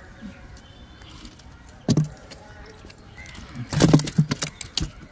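Thumps and slaps of pearl spot fish being freed from a nylon gill net and handled on the floor of a wooden boat: one thump about two seconds in, then a quick cluster of knocks near four seconds.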